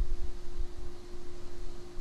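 Low background rumble with a thin, steady hum and faint hiss.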